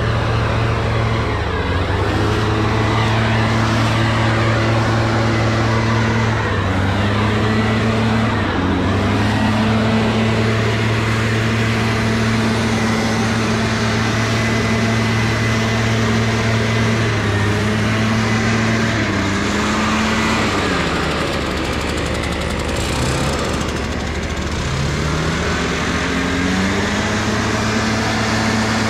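An engine running continuously. Its pitch holds steady, steps up and down, dips about twenty seconds in, then climbs back up twice near the end, as the engine speed changes under work.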